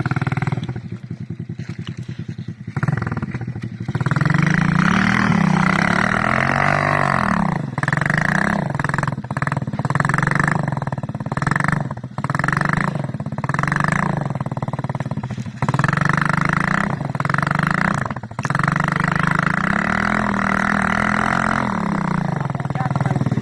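Small off-road vehicle engine running under throttle. It is fainter at first and gets louder about four seconds in. It then revs up and drops back again and again, about once a second, with a couple of longer rises and falls in pitch.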